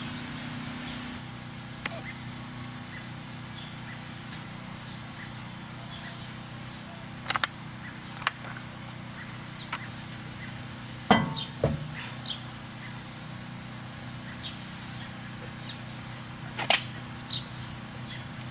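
Work on a car wheel being refitted: a few scattered sharp clicks and knocks, loudest as a close pair about eleven seconds in, over a steady low hum.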